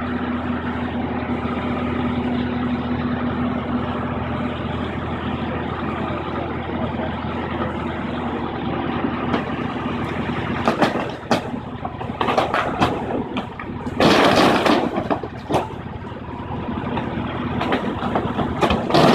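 Long-reach demolition excavator's diesel engine running steadily, then from about halfway through its bucket tearing into a brick building: a series of crashes and clatter of falling masonry, loudest a few seconds later and again near the end.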